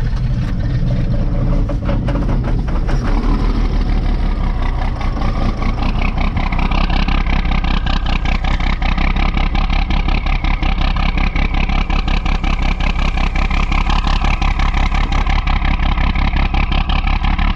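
John Deere tractor engine running on a cold morning, just brought to life after a hard start: loud and steady, with rapid, even firing pulses.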